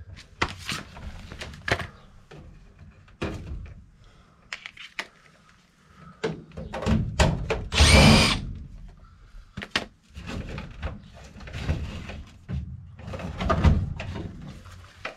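A cordless driver runs in short bursts, driving screws to fasten a replacement condensate pump. The longest and loudest run comes about two-thirds of the way through. Knocks and plastic handling sounds fall between the runs.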